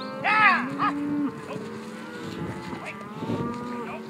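A herd of cattle lowing, with many overlapping moos and a louder, higher bawl about a third of a second in.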